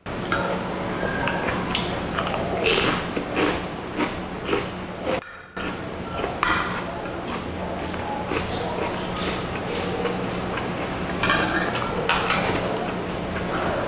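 Close-up eating noises: chewing lomi noodle soup, with a metal spoon and fork clinking and scraping against a glass baking dish in short, irregular clicks over a steady low hum. The sound drops out briefly about five seconds in.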